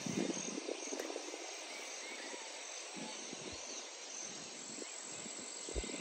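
Steady outdoor insect chorus, crickets chirring without a break, with a faint low rumble now and then.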